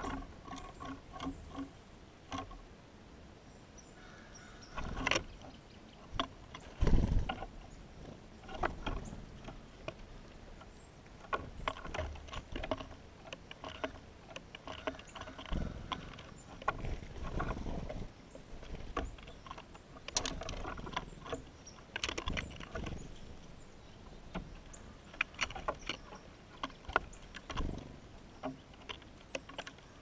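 Birds at a window feeder: irregular taps, knocks and scrapes as they land, shuffle and peck at seed, with a louder thump about seven seconds in.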